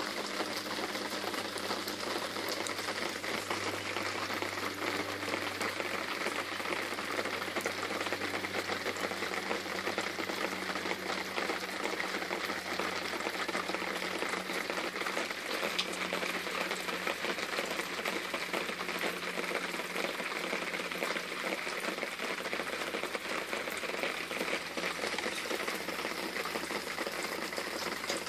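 Steady rain falling, an even crackling hiss that neither pauses nor changes.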